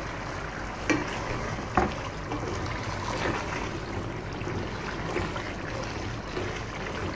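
Mutton keema cooking down in its gravy in an aluminium pot, with a wooden spoon stirring through the wet mince. Two short knocks come about one and two seconds in.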